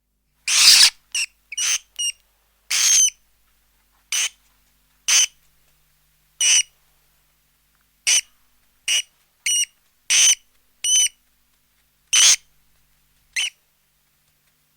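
A bird giving about fifteen short, high-pitched calls at uneven intervals, with dead silence between them.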